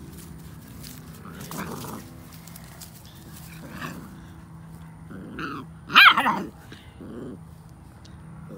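Puppies growling as they wrestle and play-bite, with a loud, short high-pitched bark about six seconds in.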